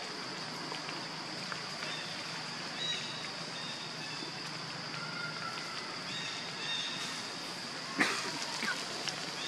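Outdoor ambience: a steady high-pitched insect drone with a few short chirps over it, and one sudden short sound near the end.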